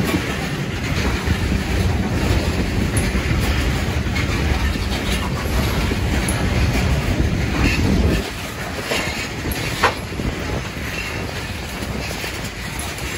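Freight train's open-top rock cars rolling past: a steady low rumble of steel wheels on rail with clicks and clanks from the wheels and couplers. The heavy rumble drops off suddenly about eight seconds in, and there is a single sharp knock near ten seconds.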